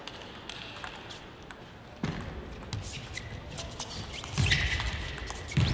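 Table tennis match sounds: scattered sharp clicks of the celluloid ball on bats and table, with dull thuds of players' feet on the court floor. About four and a half seconds in, a loud burst of crowd noise.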